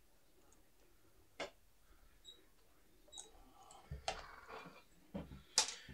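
Scattered small clicks and light knocks from handling a screwdriver, pliers and a turntable tonearm headshell: a sharp click about a second and a half in, a few faint ones, a short cluster of taps and knocks past the middle, and the loudest click near the end.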